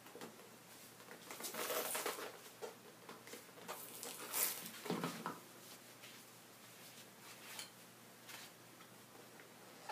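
Faint creaking, scraping and clicking of nippers gripping and prying the worn heel lift off a leather-soled dress shoe, nails working loose from the leather, with the busiest stretches about two seconds in and again around four to five seconds.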